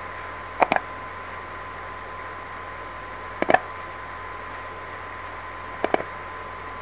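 Three quick double clicks of a computer mouse, spread a few seconds apart, over a steady microphone hiss with a faint high hum.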